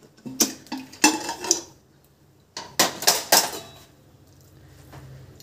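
Aluminium pressure cooker being opened: short metal clanks and knocks of the weight and lid, in clusters about a second in and about three seconds in.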